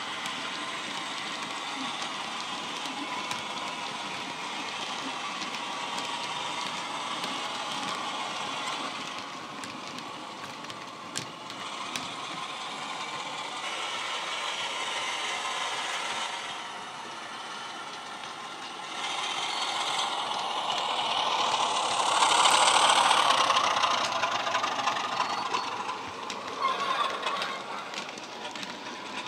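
Model class 33 diesel's sound decoder playing its recorded Sulzer engine sound through a small onboard speaker, mixed with the rattle of model wagon wheels on the track. The sound grows louder a little past two-thirds of the way through, peaks, then eases off.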